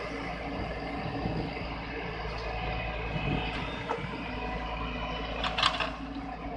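JCB JS140 tracked excavator's diesel engine running steadily as it works the boom and a loaded bucket. There is a brief sharp sound about five and a half seconds in.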